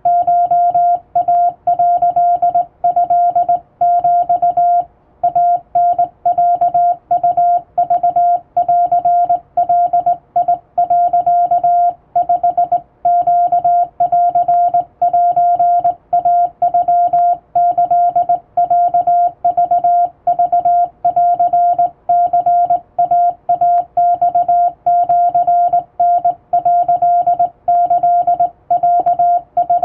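Morse code sent by hand on a straight (up-and-down) telegraph key: a single steady beep keyed on and off in dots and dashes, with short gaps between characters, sending Japanese wabun code.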